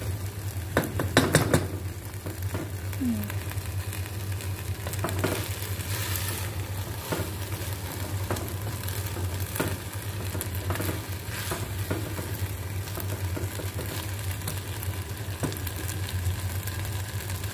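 Wooden spatula stirring and scraping half-cooked rice in a pot on the stove, the rice sizzling as its last bit of water cooks off. Scattered knocks of the spatula against the pot, the loudest cluster about a second in.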